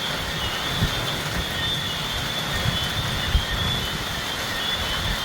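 Steady hurricane rain with gusting wind rumbling on the microphone, and a high chirping on and off.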